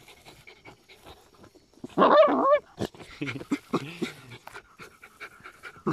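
Dogs digging into dry soil at an armadillo burrow, their claws scraping and flicking dirt in a quiet run of small scratches. About two seconds in, one dog lets out a short, loud, wavering whine, followed by lower whimpering sounds as the digging goes on.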